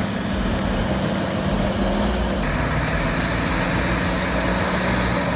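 Heavy earthmoving machine's diesel engine running steadily with a low drone; its tone drops slightly a little over two seconds in.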